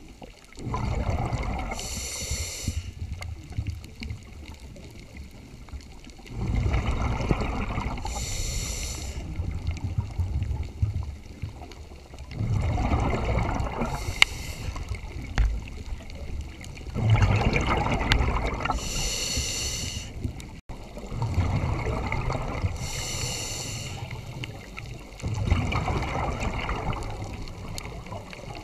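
Scuba diver breathing through a regulator underwater: about six slow breath cycles, each a low rumble of exhaled bubbles with a short high hiss of the inhale.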